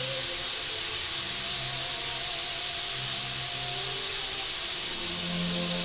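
Steam hissing steadily out of a stovetop pressure cooker's vent under its whistle weight, the cooker up to pressure.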